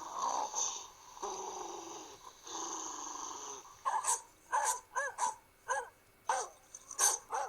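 A dog growling, a rough, drawn-out rumble broken by short breaks, for about four seconds. Then comes a run of short, high barks, about two a second.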